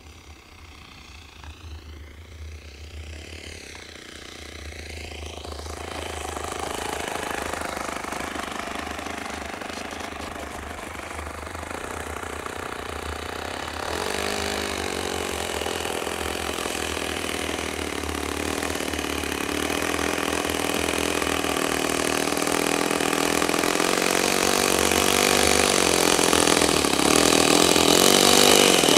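O.S. FS-26 Surpass four-stroke glow engine in a radio-controlled Fokker Dr.I triplane. It is faint at first, its pitch swinging up and down as the model flies in low. From about halfway through it runs at low throttle on the ground and grows steadily louder as the plane taxis toward the microphone.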